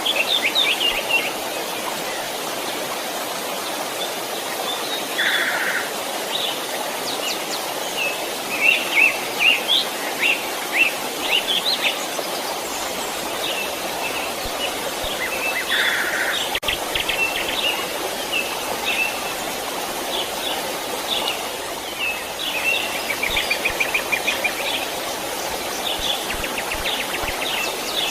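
A stream running steadily, with small songbirds chirping and trilling throughout in quick series of short high notes. A short lower call comes twice, about five and sixteen seconds in.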